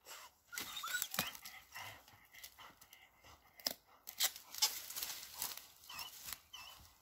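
A dog gnawing and tugging at a large branch: irregular cracks, snaps and tearing of wood and bark, with rustling of dry leaves underfoot. A few short high squeaks come in about a second in and again near the end.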